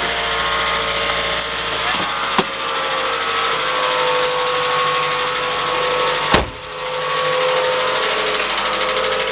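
Toyota 2AZ-FE four-cylinder engine running after a cold start, with a steady valve clatter, the knocking valves that are the engine's complaint. Two sharp clicks come about two and a half and six and a half seconds in.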